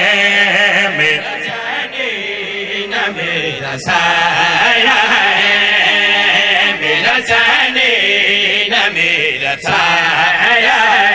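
Men chanting a devotional qaseeda in long, drawn-out melodic lines, amplified through microphones and a PA. The singing is somewhat softer at first and grows fuller from about four seconds in.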